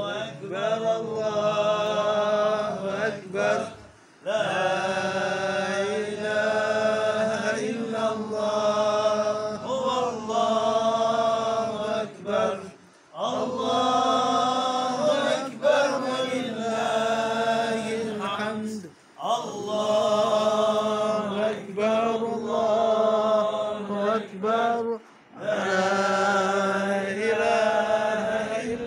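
Male voices chanting a devotional chant in long held phrases, with short pauses for breath every six to nine seconds.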